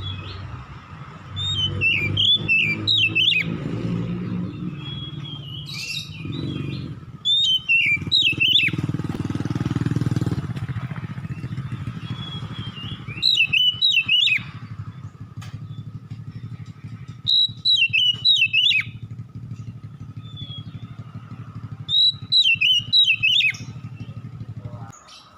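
Oriental magpie-robin (kacer) singing: five short phrases of rapid rising and falling whistled notes, several seconds apart. A steady low rumble runs underneath and stops near the end.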